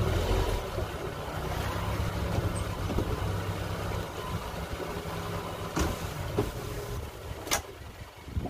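Electric drive motors of Minn Kota Talon shallow-water anchors lowering the anchors, a steady mechanical hum for about seven seconds that eases off near the end, with a few sharp clicks.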